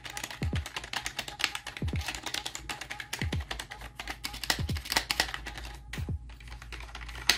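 Rapid, continuous typing on the MEETION K9520's membrane keys, a quick run of soft key clicks. It is the non-mechanical membrane key sound.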